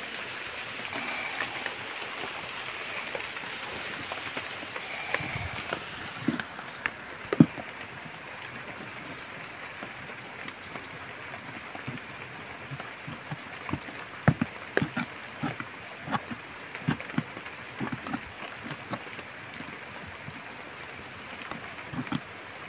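Loose soil being scraped and scooped out of a hole by hand: a string of short scrapes and knocks, thickest in the second half, over a steady background hiss.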